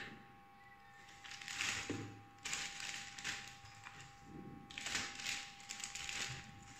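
Clear plastic zip bag crinkling and rustling as it is handled, in several irregular bursts.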